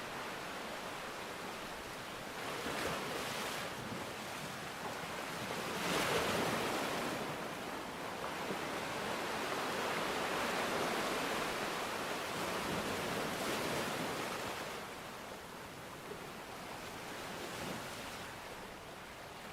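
Ocean surf: waves rushing in and washing back in a continuous hiss of water. It swells and eases over several seconds, loudest about six seconds in, with another long surge in the middle before it settles lower near the end.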